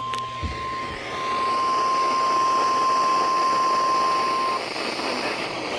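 NOAA Weather Radio's 1050 Hz warning alarm tone: a single steady tone over a heavy hiss of radio static, the signal that a warning message, here a tornado warning, is about to be read. The tone cuts off about four and a half seconds in, leaving the static.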